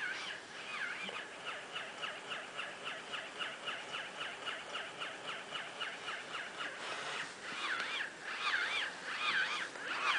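Battery-operated walking toy pig squealing from its sound chip: a quick run of short high chirps, about four or five a second, then louder swooping squeals from about two-thirds of the way in.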